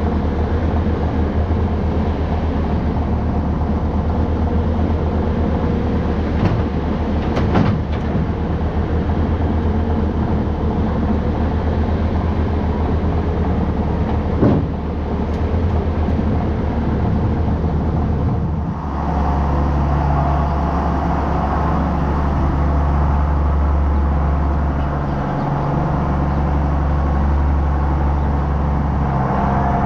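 An engine running steadily, with a few knocks about 7 and 14 seconds in; about 19 seconds in its sound shifts to a fuller, steadier drone.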